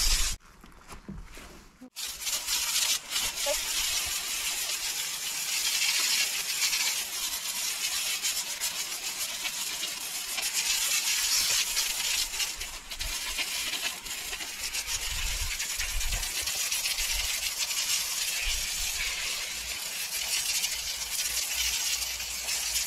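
Water spraying steadily from a hose, showering down a horse's coat; the spray starts about two seconds in after a short quiet moment.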